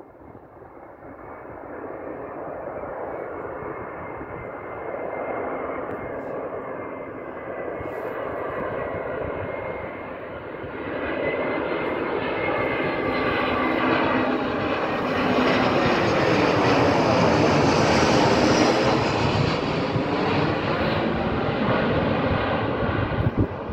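Airbus A320 jet airliner on approach with its gear down, the engine noise building steadily as it comes in and passes overhead, with a high whine on top. It is loudest about three-quarters of the way through, where the sound bends in pitch, then eases slightly as it flies away.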